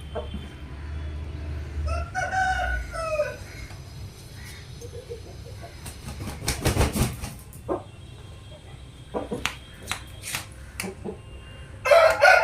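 Rooster crowing twice: once about two seconds in, and again louder near the end. Several sharp clicks or knocks come in between.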